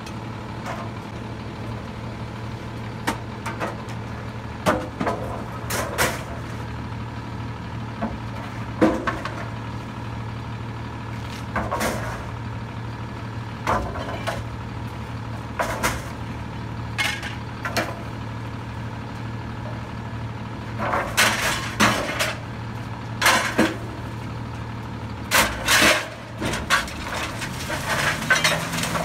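Rear-loader garbage truck idling steadily while wooden boards are thrown into its steel hopper, clattering and banging at irregular moments, with a dense run of crashes late on. Near the end the engine speeds up as the hydraulic packer blade starts its cycle.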